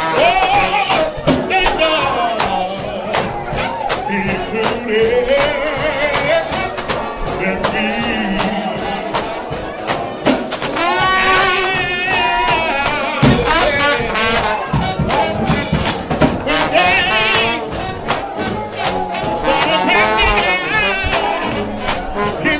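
United House of Prayer shout band of trombones playing a hymn with wide, wavering vibrato over a fast, steady beat of drums and tambourine.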